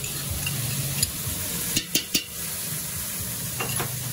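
Sliced onions and garlic frying in hot olive oil in a large stainless steel stockpot, a steady sizzle. A few sharp clicks come about two seconds in and again near the end.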